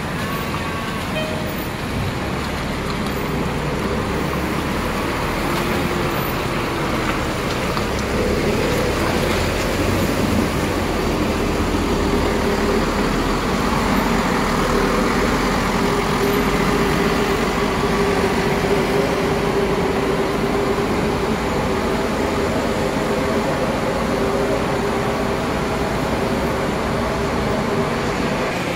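Large bus engines running as buses drive slowly through the bus terminal, with a steady hum that grows stronger partway through.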